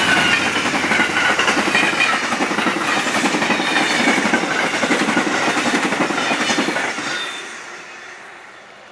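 Amtrak passenger train cars rolling past at close range, a loud steady rush of wheel and rail noise that fades away about seven seconds in as the train goes by.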